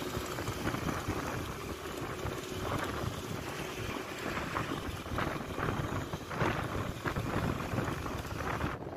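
Wind rushing over the microphone together with the steady road noise of a moving vehicle.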